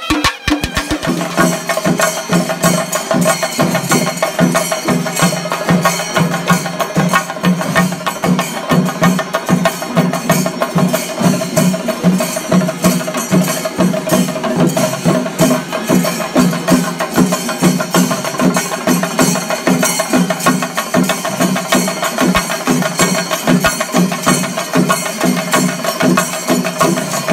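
Sinkari melam: a troupe of chenda drums beaten rapidly with sticks in a dense, unbroken rhythm. In the first second, music from a horn band gives way to the drumming.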